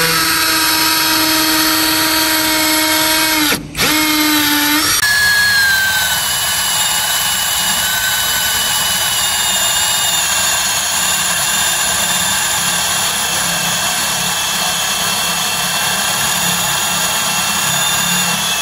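Yamasu YMS-M10 21V cordless brushless drill driver running with a steady motor whine. Near four seconds the whine dips briefly and comes back, as when the trigger is eased off and squeezed again. After about five seconds it runs on with a rougher, noisier sound.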